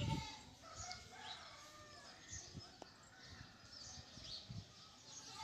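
Birds chirping and calling faintly in short, repeated rising and falling notes. There is a brief low thump right at the start.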